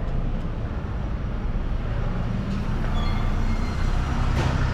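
City street traffic: a motor vehicle's engine running close by, a steady low hum that grows a little louder about three seconds in.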